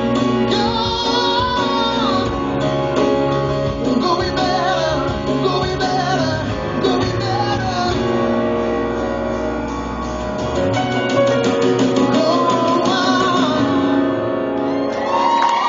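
Live acoustic guitar and electric bass playing the closing passage of a song, with a voice singing long held notes over it near the start and again later; the low bass part drops out about two-thirds of the way through.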